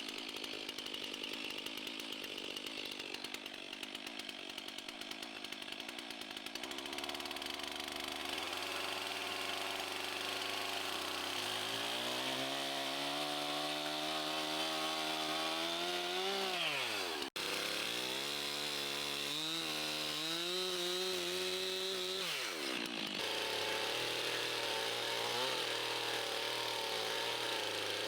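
Small gasoline engine running, its pitch climbing slowly and then falling away steeply twice, as under changing load or throttle.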